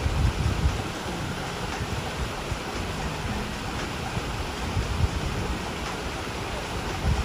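Shallow mountain stream running over stones, a steady rushing. Gusts of wind rumble on the microphone about half a second in, around five seconds in, and near the end.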